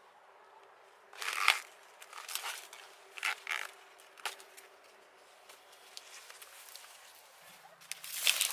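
Crackling, tearing rustles in several short bursts, about five over the stretch, the loudest about a second in.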